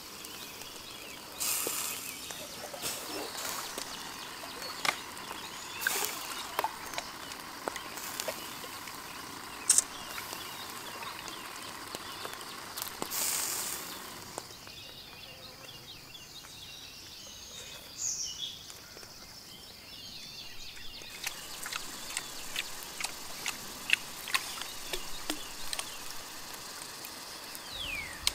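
Wood fire crackling with frequent sharp pops under food cooking on the grill. A quieter stretch about halfway through holds one short bird chirp.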